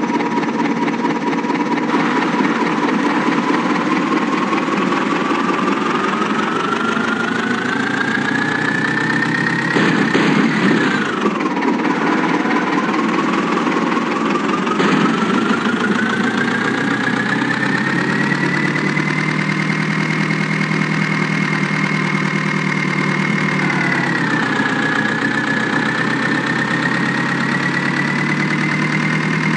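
A truck engine and drivetrain pulling under load. Its whine rises steadily with speed, falls sharply about a third of the way through at a gear change, then climbs again, with a second smaller dip near the end.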